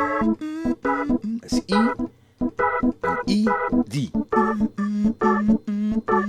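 Keyboard on an organ sound playing a reggae organ bubble: short chord stabs repeating several times a second in a steady rhythm, moving between the A, D and E major chords in the key of E.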